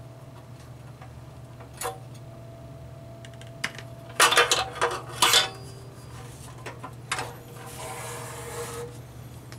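Metal body and chrome wire pan support of a portable single-burner propane stove clattering as the stove is handled and turned over, with a burst of loud rattles about four seconds in. Lighter knocks follow, then about a second of scraping near the end as the stove slides on the bench.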